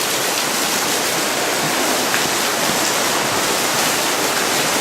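Floodwater flowing in a steady, even rush.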